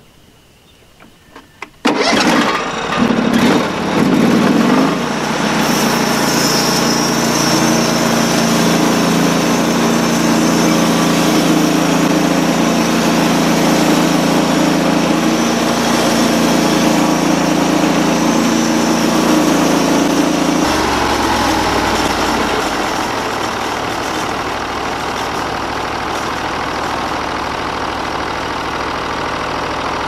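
Portable bandsaw mill's gasoline engine starting about two seconds in and running at high throttle while the band blade cuts through a log. Its speed drops to idle about twenty seconds in and stays there.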